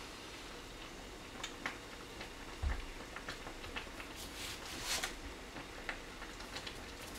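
Kitchen knife slicing a small apple watermelon on a plastic cutting board: scattered taps and knocks of the blade and rind on the board, a single low thump a little under three seconds in, and a short burst of crisp cutting through rind and flesh around the five-second mark.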